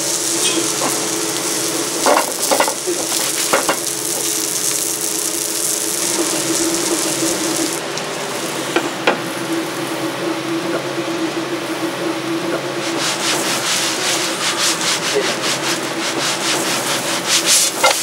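Meat sizzling as it fries in a pan, stirred with a utensil that scrapes and knocks against the pan, with quick repeated strokes over the last few seconds.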